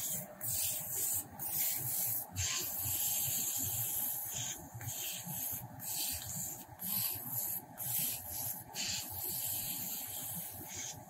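HighTex 828Q laser webbing cutting and hole-punching machine running through a cut: a steady hiss broken by short pauses roughly once a second, over a faint steady hum.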